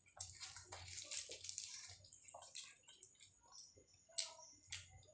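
Quiet, wet chewing and lip-smacking of soft fried bread and curry eaten by hand, with scattered small clicks and a few sharper ticks in the second half.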